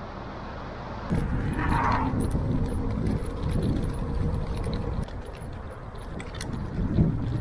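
Wind rumbling on the microphone with scattered light rattling clicks while riding an electric kick scooter, getting abruptly louder about a second in.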